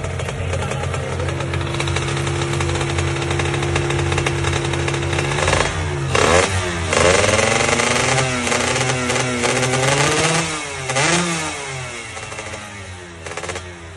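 Motorcycle racing engine on test, idling steadily, then revved up and down several times from about six seconds in before settling back toward idle near the end.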